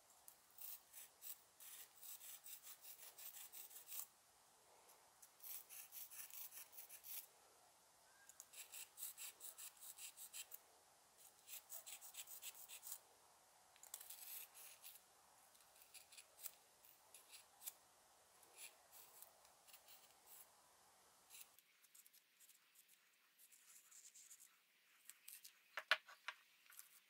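A lump of charcoal rubbed back and forth over an engraved flat stone in quick scratchy strokes, to darken the carved lines. The strokes come in runs of a second or two and are faint. Near the end there is one sharp tap.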